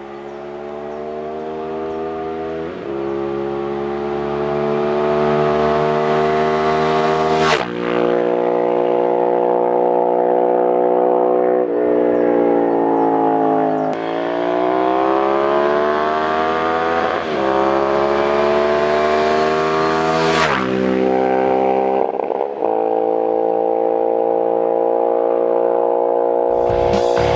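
Ducati Monster 796's 803 cc L-twin engine running through twin carbon-fibre slip-on mufflers, a deep, full exhaust note. The revs hold or climb for a few seconds at a time and drop back sharply several times, as at gear changes, and the sound grows louder over the first few seconds.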